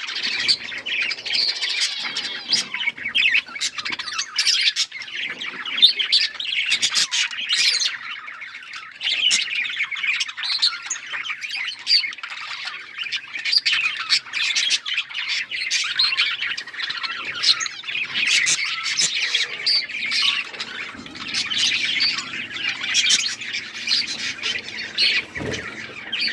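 A flock of budgerigars chattering: many overlapping chirps, warbles and squawks.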